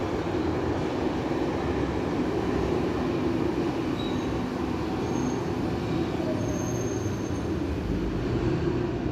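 A Berlin U-Bahn train on line U7 pulls into an underground station platform, slowing to a stop with a steady rumble of wheels on rails. Faint high-pitched squeals come in around the middle.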